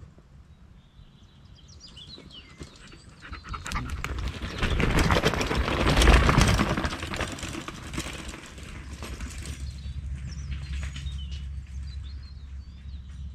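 A mountain bike passes over a stony dirt track, its tyres crunching on loose gravel. The sound swells to a peak about six seconds in and then fades, as a dog runs past close by. Birds chirp throughout.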